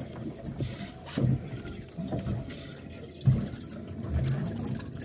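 Water sloshing against a small boat's hull, with a few soft low bumps.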